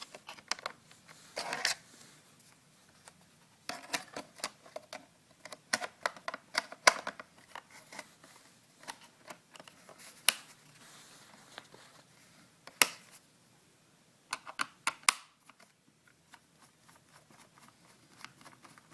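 Irregular sharp clicks and taps from handling the parts of a Lenovo ThinkPad laptop during a hard drive installation, coming in clusters and stopping about three-quarters of the way through.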